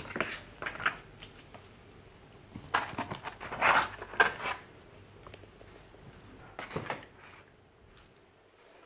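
Unboxing handling of packaging and paper: intermittent rustles and light knocks, busiest about three to four and a half seconds in, then quieter near the end.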